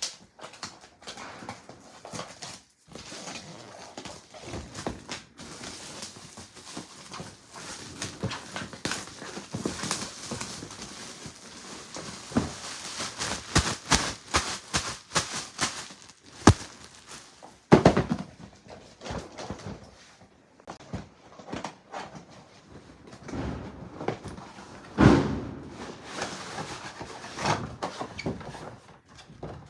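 Gift box and its wrapping being handled close up: irregular crinkling and crackling mixed with light taps and clicks. Louder crinkling bursts come about 18 and 25 seconds in.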